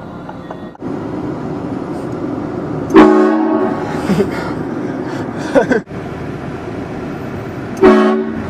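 Air train horn sounding two short, loud blasts about five seconds apart, each a chord of several tones. A short rising sound comes between them, over a steady low background noise.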